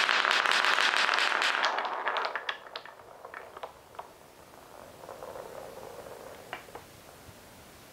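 Many marbles rolling and clattering down a wooden marble run track: a dense rattle of clicks that thins out after about two seconds into scattered single clicks and a faint rolling sound as the last balls run through.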